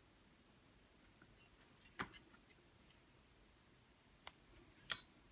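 Faint, scattered light clicks and taps, about ten of them in the middle and towards the end, over near-silent room tone, from hands handling things at a kitchen worktop.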